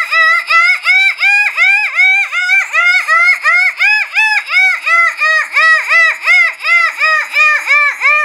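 A woman vocalising 'dolphin light language', a dolphin-like voice: a long, even run of high-pitched calls, each rising then falling in pitch, about three a second.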